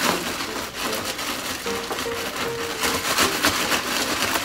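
Continuous crackly rustling from hands-on food preparation in a kitchen, with light background music.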